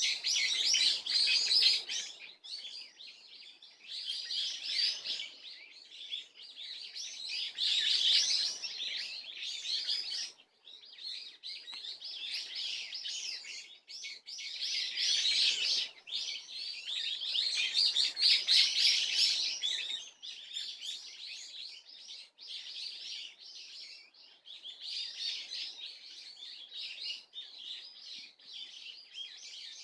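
Birds twittering in a fast, continuous high-pitched chatter, in phrases of a few seconds that swell and fade; the recordist takes it for swallows.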